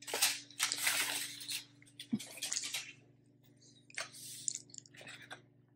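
Aluminium foil crinkling as it is handled and folded back, in several rustling bursts over the first three seconds, then two shorter crinkles about four and five seconds in.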